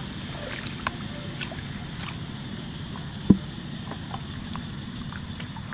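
A caught fish dropped into a black plastic bucket, with one sharp thump about three seconds in and a few faint clicks around it. A steady low rumble runs underneath.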